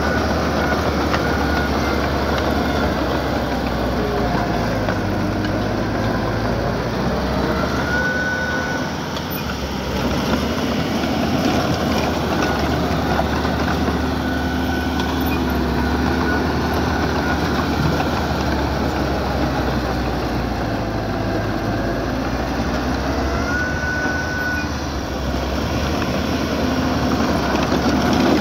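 Diesel engine of heavy earthmoving equipment running steadily, with two brief high squeaks, about eight seconds in and again near twenty-four seconds.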